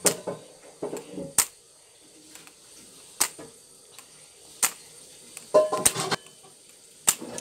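A tripod swung back and forth close to the microphone, making a short, sharp swish each time it passes, about six times.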